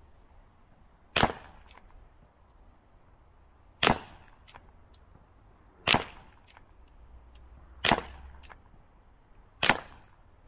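Five shots from a CO2 air revolver firing .177 slugs, about two seconds apart, each a short sharp crack followed by a faint click or two.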